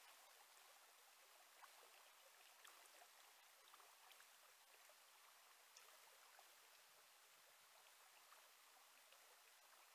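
Near silence: a faint, steady hiss of flowing river water, with a few faint small ticks.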